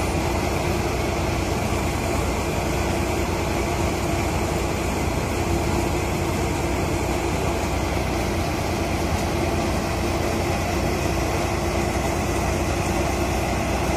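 Motorised paddy threshing and cleaning machine running steadily, an unbroken mechanical drone with a constant hum as it threshes and cleans the rice.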